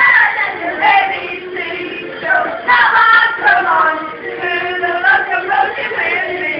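Party karaoke: a woman's voice singing loudly into a handheld microphone over backing music, with other voices joining in.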